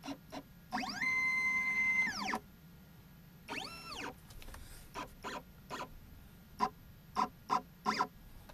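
Stepper motors of a CNC Piranha router table whining as the machine jogs its axes: a stepped whine that rises, holds for about a second, and falls, then a second shorter rise and fall. After that come several short, light clicks.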